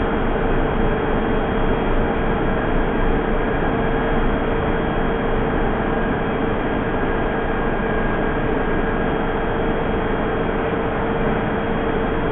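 Steady hum and hiss of a London Underground 1967 Tube Stock train standing at the platform with its doors open, with a constant mid-pitched whine from its running equipment.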